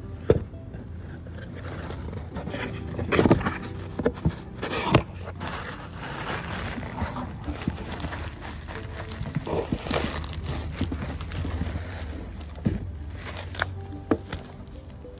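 Bubble wrap crinkling and rustling as a bubble-wrapped package is handled and lifted out of a cardboard shipping box, with several sharp clicks and knocks along the way.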